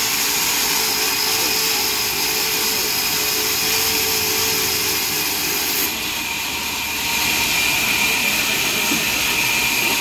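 Large band sawmill running, its blade sawing mahogany timber: a steady, loud whine and hiss. About six seconds in the sound dips briefly, then a steady whine returns.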